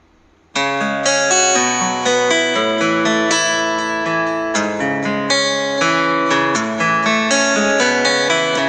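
Instrumental background music that cuts in suddenly about half a second in, a quick run of plucked notes.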